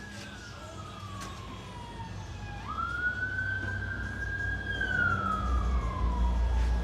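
An emergency vehicle's siren wailing: one long tone falling slowly, sweeping quickly back up partway through, holding, then falling again. A low rumble grows louder near the end.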